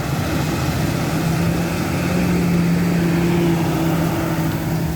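Engine of a tractor pulling a grain cart passing close by in the harvest field, a steady drone that swells in the middle and eases near the end.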